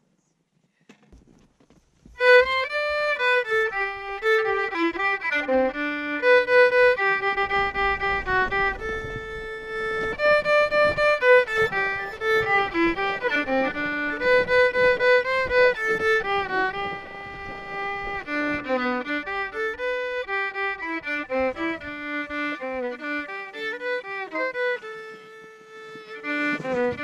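Background fiddle music: a bowed fiddle playing a quick melody, coming in about two seconds in.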